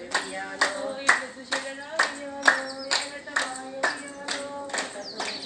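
A group of women clapping in unison, about two claps a second, while singing a Bathukamma folk song together as they circle the flower stack.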